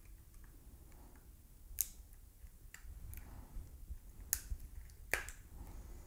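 Clear plastic clamshell pack of laptop RAM modules being pried open by hand: three sharp plastic snaps, about two, four and five seconds in, with fainter clicks between.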